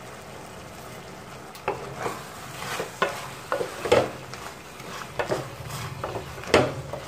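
Wooden spatula stirring thick mutton gravy in a pressure cooker pan, mixing in freshly added salt. It gives irregular scrapes and knocks against the pot over the low sizzle of the simmering gravy, with the stirring starting about a second and a half in.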